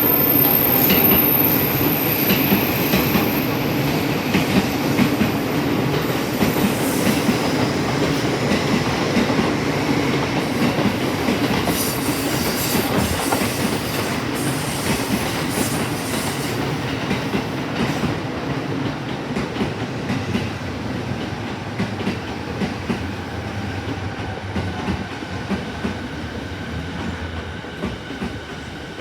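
A train running along the tracks past a station platform, its wheels rumbling and clattering on the rails, slowly getting quieter toward the end.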